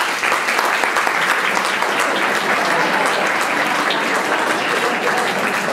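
Audience applauding steadily: many hands clapping together in a dense patter.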